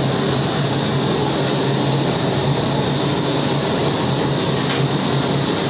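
Transport aircraft's engines running steadily on the ground: a constant loud rush with a steady low hum underneath.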